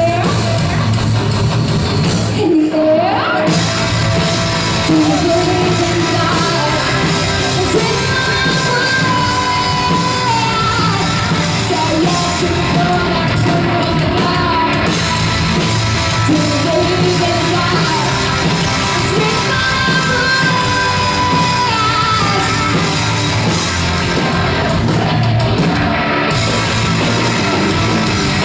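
Heavy rock song played by a full band, with a female lead vocal that moves between sung lines and yelled, grunting screams.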